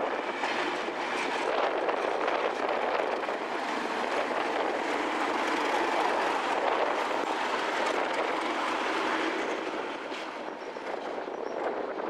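Network Rail test train's coaches rolling past on the rails, a steady rush of wheel and rail noise that dies away about ten seconds in.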